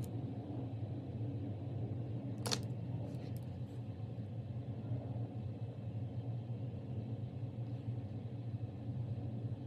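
Steady low background hum, with one short click about two and a half seconds in.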